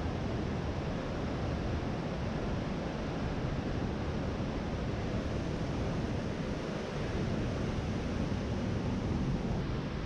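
Steady rushing of whitewater in a rocky creek and waterfall, mixed with wind on the microphone.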